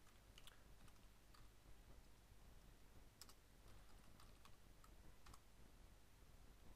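Faint computer keyboard typing: a dozen or so irregular, scattered keystrokes over a low steady hum.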